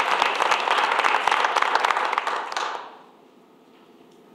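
A roomful of people applauding, the clapping dying away about three seconds in.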